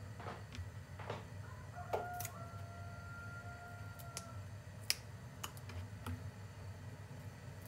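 Hands handling fresh dill on a plastic cutting board: scattered light clicks and taps, the sharpest about five seconds in, over a low steady hum. A faint steady whine is held for about two seconds near the start.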